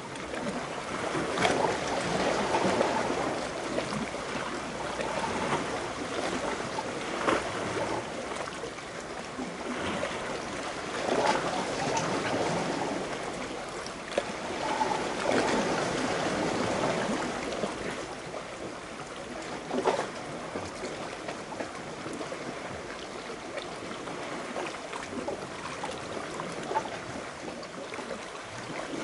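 Seawater lapping and sloshing against rocks right beside the microphone, in uneven surges, with a few sharp slaps, the clearest about twenty seconds in.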